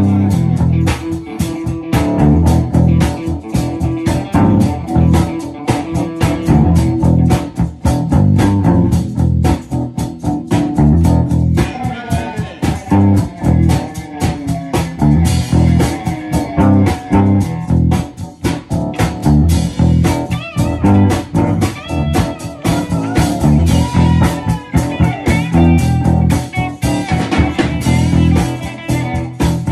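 A live band jamming: guitar lines over bass and drums, with a steady beat of drum hits.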